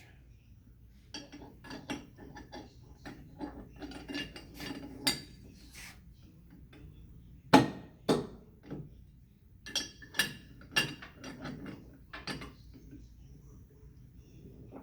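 Irregular metallic clinks and clanks of a wrench and steel nipple-chuck parts being handled and fitted, with one sharper knock about halfway through.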